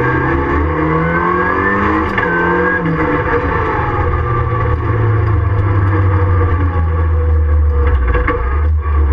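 Ford Fiesta Mk7 rallycross car's engine heard from inside the cabin at racing speed. It rises in pitch in steps with breaks between over the first three seconds, then runs at a steadier pitch, with a brief dip near the end.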